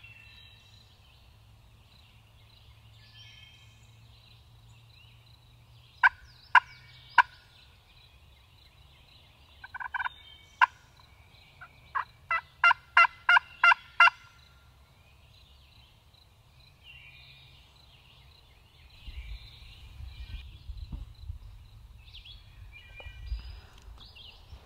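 Turkey calling in runs of short, sharp, evenly spaced notes: three about six seconds in, a couple around ten seconds, and a run of about seven from twelve to fourteen seconds, over faint songbird chirping. In the last few seconds, low rumbling and rustling from the camera being handled.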